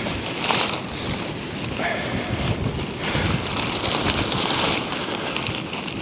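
Strong wind buffeting the microphone while the nylon fabric of an MSR Elixir 2 tent rustles and crackles in quick, uneven bursts as it is handled during take-down.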